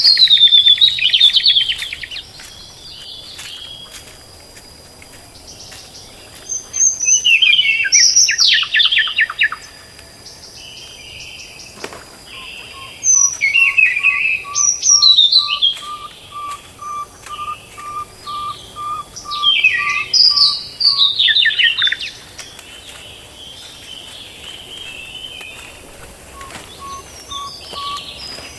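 Wild songbirds singing. Four loud bursts of fast, falling, trilled phrases come a few seconds apart, while a lower bird repeats a single whistled note about twice a second through the middle and again near the end.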